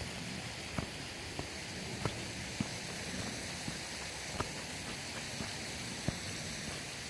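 Footsteps of a walker on grass and a stone-edged path, soft short knocks every half second to second, over a steady hiss.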